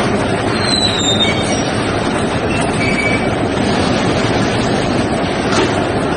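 Precast concrete pole cage welding machine running with a steady mechanical noise, metal on metal giving short high squeals about a second in and again around three seconds.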